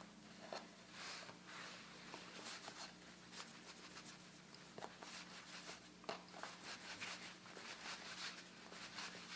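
Faint, soft rubbing and light taps of hands pressing, rolling and shaping pretzel dough on a wooden cutting board, over a steady low hum.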